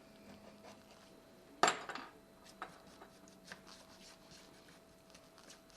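Light clinks and taps of small metal repair tools against glass while the back glass is being worked off, with one sharper clink about a second and a half in and a faint steady hum underneath.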